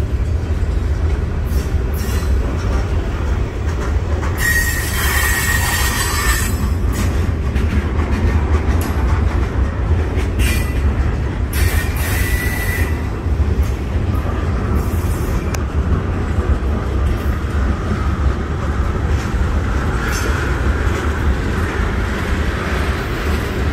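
Freight train cars (steel gondolas, covered hoppers, a tank car) rolling past and slowing down, with a steady rumble of wheels on rail. Wheels squeal on the rail about five seconds in and again briefly near twelve seconds, with a fainter screech later on.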